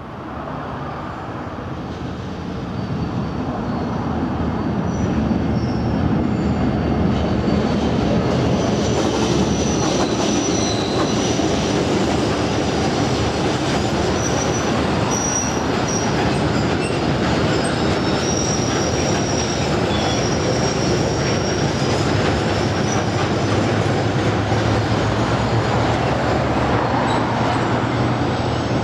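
Irish Rail 071 class diesel locomotive, with its EMD V12 two-stroke engine, running past, followed by a long rake of open freight wagons rumbling by. The sound builds over the first few seconds and then holds steady and loud, with thin, high wheel squeals coming and going in the middle.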